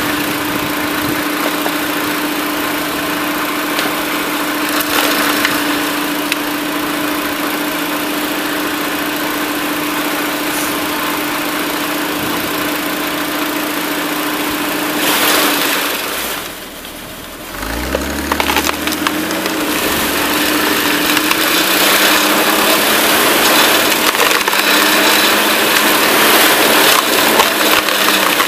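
Engine-driven screw-cone wood splitter running steadily as its spinning threaded cone bores into log rounds, with wood cracking and splintering. About sixteen seconds in, the engine drags down hard under the load of a large round, nearly stalling, then winds back up to speed.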